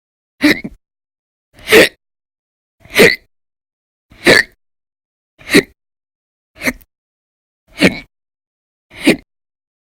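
A woman's loud, violent hiccups, eight short sharp ones at an even pace of about one every 1.2 seconds, part of a prolonged hiccup attack.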